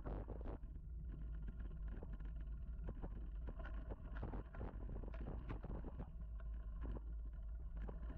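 Mountain bike riding along a dirt singletrack: a constant low rumble of wind and vibration on the bike-mounted camera, with frequent irregular clicks and rattles as the bike jolts over bumps in the trail.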